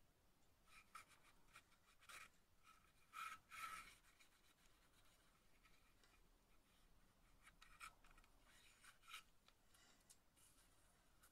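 Faint, irregular scraping and rubbing of wooden sticks along a VSR-10 airsoft rifle's barrel held in gloved hands, in short strokes with the loudest a little over three seconds in.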